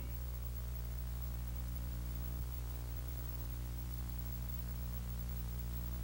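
Steady low electrical hum with its overtones, under a faint even hiss; nothing else sounds.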